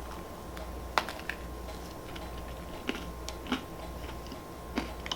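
Close-up eating sounds of a bite into a Krispy Kreme strawberry donut and chewing it, with about half a dozen sharp crunches from its hard sugar candy topping.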